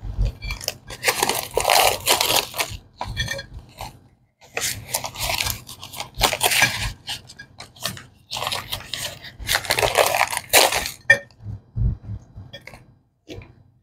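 A paper wrapper crinkling and rustling as it is peeled off a cornstarch block, in three long stretches, while the block crunches as it breaks apart. Near the end, short clicks as cornstarch chunks drop into a ceramic dish.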